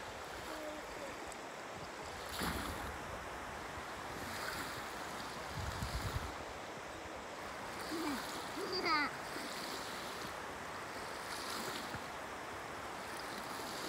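Small waves washing onto a sandy shore of a calm sea, a steady wash that swells softly every few seconds, with some wind. A child makes a few short vocal sounds about eight to nine seconds in.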